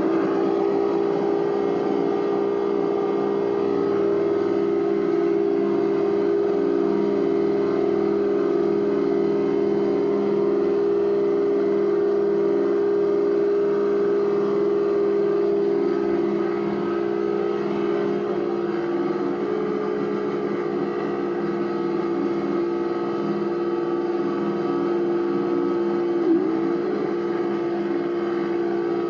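Homemade theremin-like noise box (a 4046 chip oscillator feeding an echo delay chip) playing through an external amplifier: a steady electronic drone of a few close tones. The pitch shifts slightly near twenty seconds in, and there is a brief warble about twenty-six seconds in.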